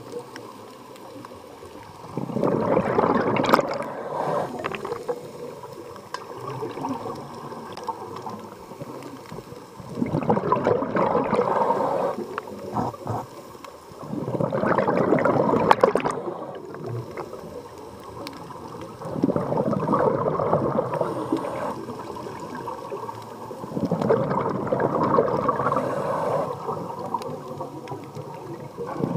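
Scuba regulator exhaust: a diver's exhaled bubbles gurgling out in five surges of two to three seconds each, a few seconds apart, heard underwater, with a lower steady hiss between them.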